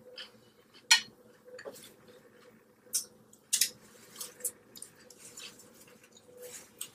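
Close-up sounds of a person eating a taco: scattered wet smacks, crunches and mouth clicks, with the sharpest ones about a second in and between three and four seconds in.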